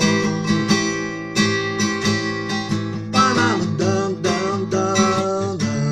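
Acoustic guitar strummed in steady chords, about one stroke every two-thirds of a second: an instrumental passage between sung lines.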